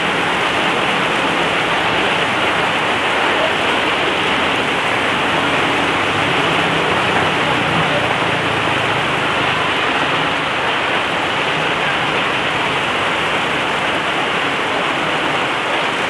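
Heavy tropical rain pouring onto a wet, flooded road: a loud, steady hiss. Motorbikes pass through it now and then.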